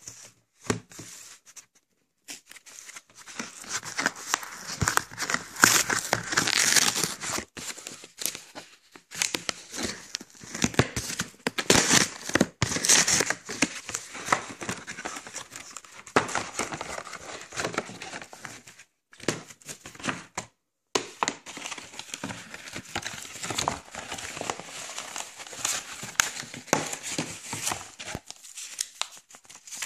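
Plastic shrink-wrap crinkling and tearing as it is pulled off a Blu-ray steelbook case, in irregular rustles with a few short pauses.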